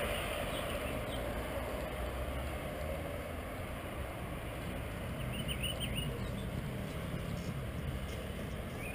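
Steady road traffic on a busy multi-lane city road: cars driving past with a continuous low rumble. A few brief bird chirps come through about five to six seconds in.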